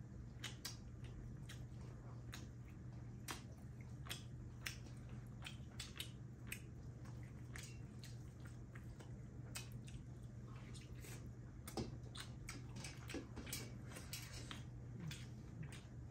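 Eating sounds: scattered soft wet clicks of chewing and lip smacks, and fingers squishing curry-soaked rice in metal plates, a few times a second at irregular moments. A steady low hum runs underneath.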